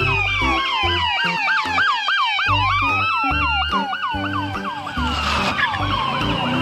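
Electronic police siren wailing, several siren tones layered: one yelps quickly about five times a second while others slowly fall and rise. Background music with a steady beat runs underneath.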